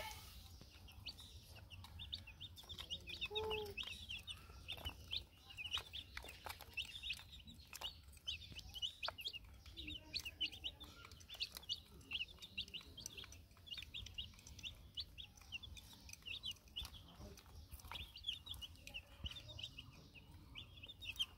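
A group of young chicks peeping continuously: many short, high cheeps overlapping one another, with a few faint clicks among them.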